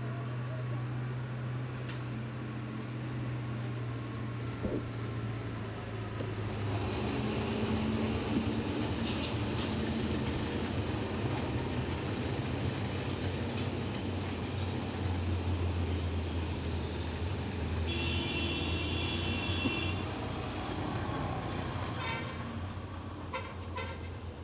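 Heavy army trucks driving past on a road with their engines running in a steady low rumble, a motorcycle among them. The rumble grows louder about seven seconds in, and a short high-pitched tone sounds about three quarters of the way through.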